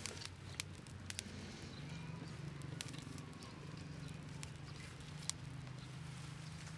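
Newly lit fire of dry straw and sticks crackling, with a few sharp pops scattered through it, over a faint steady low hum.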